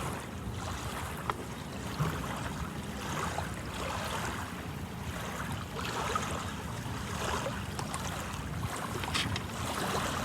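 Ocean surf washing on the shore, a whooshing that swells and fades every few seconds, with wind on the microphone.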